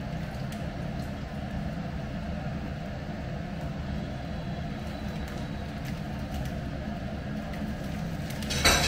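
A steady low hum runs throughout. Near the end a plastic shopping bag crinkles briefly and loudly as it is handled.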